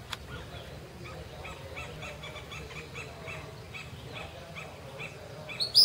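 Gray kingbird (pitirre) giving one loud, sharp call near the end, over a steady string of short high chirps, about three a second.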